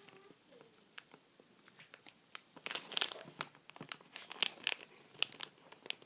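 Crinkling and crackling of a plastic sticker packet being handled and pulled open: quiet at first, then a run of irregular sharp crackles from a little over two seconds in.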